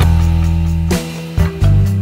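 Music with held low bass notes and guitar, the bass changing note about a second in and again shortly after.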